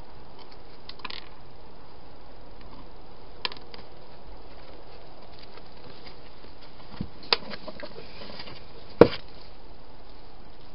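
A few sharp knocks and clicks over a steady hiss, the loudest about nine seconds in. They come from an animal feeding inside a clear plastic hedgehog feeding box, bumping the box and bowls.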